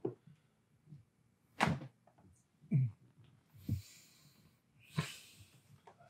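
Chiropractic neck adjustment: the neck joints give a single sharp crack about one and a half seconds in, followed by a few softer short sounds and breathing.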